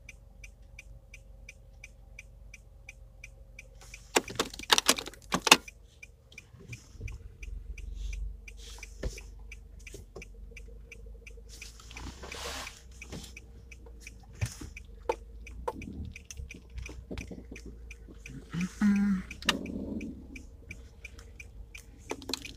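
Car turn-signal indicator ticking steadily, about three clicks a second, fading out in the latter part. A few loud knocks come about four to five seconds in, and the low rumble of the car pulling away runs under it.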